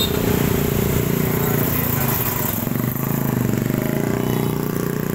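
Busy road traffic, mostly small motorbikes passing close by with their engines running, over a steady hum of engines.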